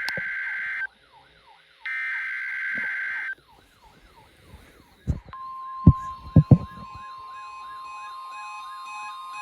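Emergency Alert System alert tones. Two harsh, screeching digital data bursts of about a second and a half each are followed, about five seconds in, by a steady high alarm tone that holds to the end. Under it all runs a repeating rising-and-falling siren-like wail, and a few loud clicks come between about five and six and a half seconds.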